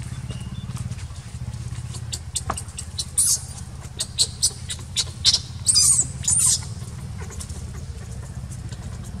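Infant macaque giving a string of short, sharp, high-pitched squeaks and cries, the loudest bunched together a little past the middle, over a steady low hum.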